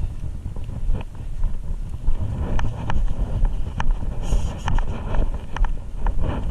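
Wind buffeting a GoPro microphone, a steady low rumble, with scattered sharp clicks throughout.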